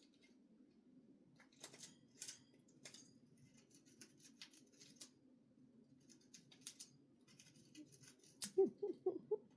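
A budgerigar's faint, sharp beak clicks and scratchy chatter, scattered irregularly over a low steady hum. Near the end comes a quick run of short, low pitched sounds.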